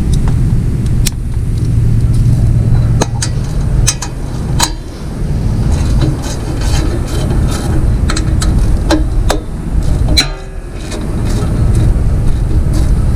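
Scattered sharp clicks and knocks of hand tools working on the mower engine's parts, over a steady low rumble that drops out briefly near the end.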